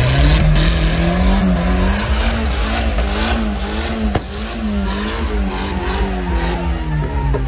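Car engine revving hard during a burnout, with the spinning rear tyres squealing and hissing against the asphalt. The engine note climbs over the first second or two, then rises and falls again and again as the throttle is worked.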